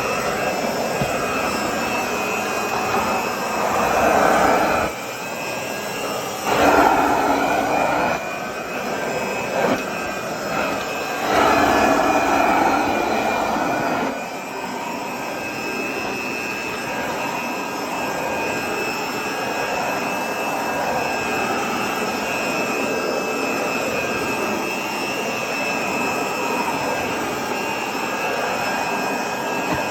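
1920s Regina Crown upright vacuum cleaner running steadily with a high whine, its sound swelling louder three times in the first half.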